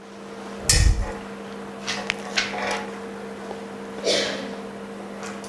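Handling noise from a phone screen being turned over in the hand: a thump about a second in, a few light clicks, and a rustle about four seconds in, over a steady low hum.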